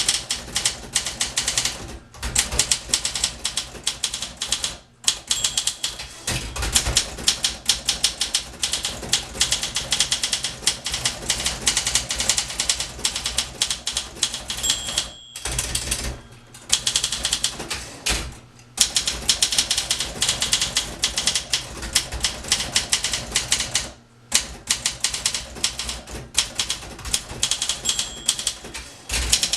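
1961 Olympia SM 4 portable typewriter being typed on quickly: a dense run of sharp key and typebar clacks, broken by a few short pauses.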